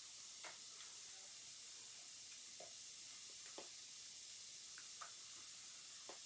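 Faint, soft squelches of sticky orange slime being squeezed and pulled apart by hand, about five brief ones, over a steady background hiss.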